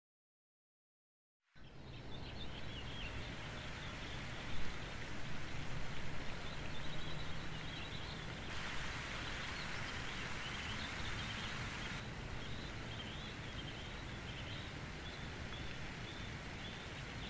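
Complete silence for about a second and a half, then outdoor park ambience: a steady background hiss with small birds chirping throughout and one brief louder sound a few seconds in.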